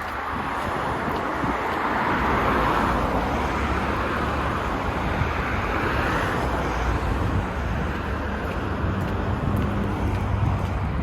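Steady vehicle noise, a low rumble with a hiss that swells and fades twice.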